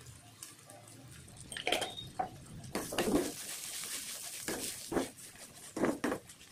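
A steel spoon stirring cluster beans in a metal kadai, scraping against the pan in short strokes from about two seconds in. A frying hiss rises about three seconds in as the beans are stirred over the flame.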